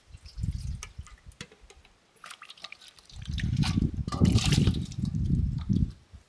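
Water pouring and dripping off an aluminium plate into a large aluminium basin of dishwater as dishes are rinsed by hand. There are light splashes and knocks, and the pouring is loudest from about halfway in.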